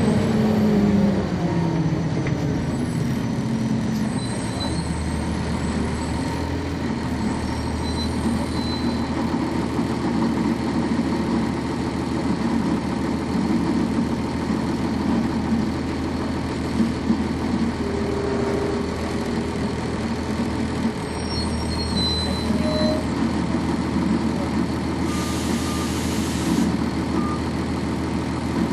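Cummins ISC inline-six diesel engine of a 1999 NovaBus RTS transit bus, heard on board while the bus is moving. The engine's pitch falls over the first few seconds, then it runs with a steady low drone, and a short hiss of air comes near the end.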